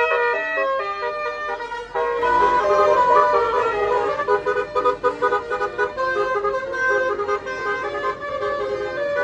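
Bus 'telolet' Basuri multi-tone musical horn playing a quick melody, its notes changing every fraction of a second without a break.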